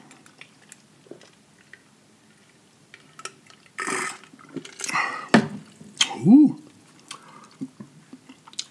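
Drink sucked up through a straw, with a few short slurps in the middle, followed by a brief hum. Soft mouth clicks and smacks come before and after.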